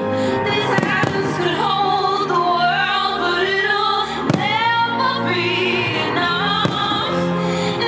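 Operatic singing with orchestral music, crossed by a few sharp firework bangs; the loudest bang comes about four seconds in.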